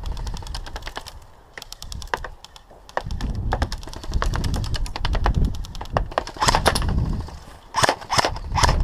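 Airsoft rifle fire: rapid runs of sharp, clicky shots in quick bursts, with a low rumble under them through the middle and a few louder cracks near the end.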